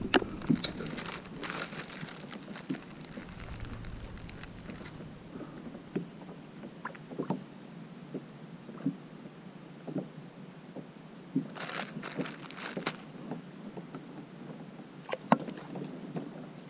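Scattered light knocks and clicks of fishing gear being handled aboard a kayak, with a brief rustling stretch about twelve seconds in, over a faint steady hiss.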